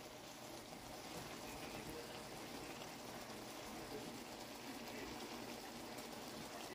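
Faint, steady simmering and light sizzling of a creamy mushroom-and-tuna sauce in a hot frying pan.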